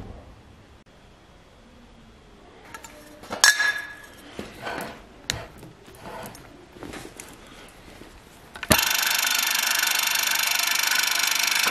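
Square steel tube clinking and clanking against the steel vise jaws of a metal cold saw as it is set in and clamped. Near the end the cold saw's motor starts suddenly and runs steadily.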